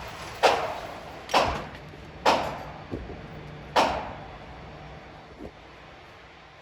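Gunshots on a shooting range: four sharp shots, the first three about a second apart and the last after a longer gap, each with a short echoing tail.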